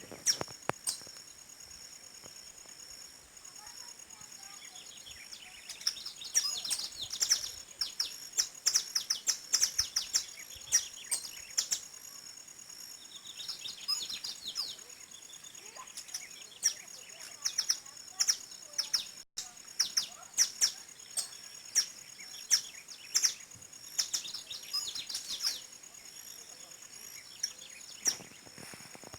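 Wild birds chirping and calling, many short sharp notes in quick, irregular runs over a steady high hum.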